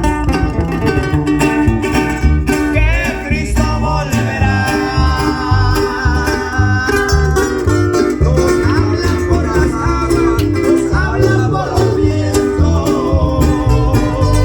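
Band rehearsing live through a PA system: electric bass playing strong, changing notes under plucked guitars, with a lead requinto guitar sliding between notes.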